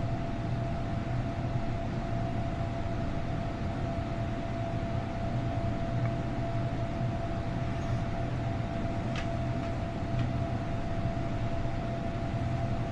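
Steady background room noise: a low hum with a faint steady high tone over it, and a couple of faint clicks about nine and ten seconds in.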